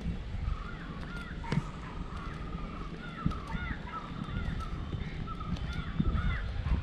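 A flock of birds calling over and over, many short arched calls overlapping, over a steady low rumble.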